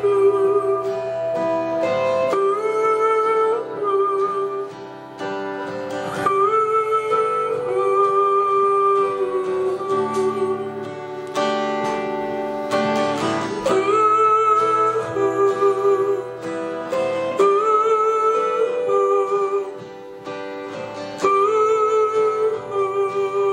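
Live gospel rock band playing an instrumental passage after the last verse, a guitar-led melody repeating in phrases about every four seconds over the band.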